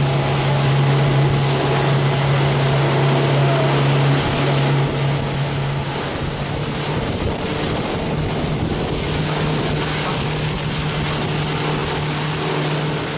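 A motorboat's engine running at a steady speed, with wind and water rushing past. The engine hum eases slightly about four seconds in.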